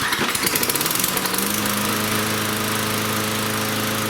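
Toro Personal Pace mower's 6.5 hp Tecumseh engine starting up, revving up over about a second and a half, then running steadily.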